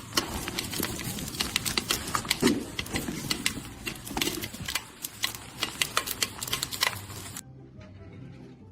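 A rapid, irregular run of sharp clicks and taps that stops about seven seconds in.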